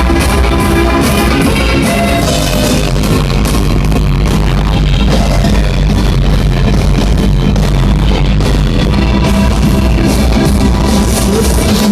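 Loud recorded music played over a sonidero sound system, with heavy bass and a steady drum beat.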